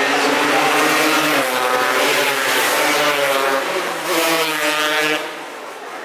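Racing motorcycle engine revving hard as it accelerates up the street and passes close by, its pitch climbing and falling back twice. The sound drops away about five seconds in.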